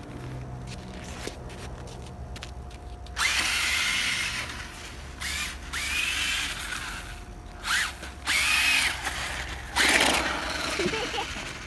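Monster Jam Megalodon RC toy monster truck's electric motor whining in about five short bursts, each rising and falling in pitch, as it is driven in snow.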